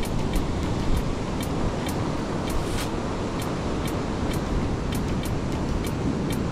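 Ocean surf breaking and washing up a sandy beach: a steady rush of water, with wind rumbling on the microphone and scattered faint clicks throughout.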